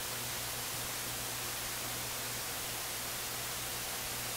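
Steady hiss with a low, even hum beneath it: the background noise floor of the recording during a pause in speech.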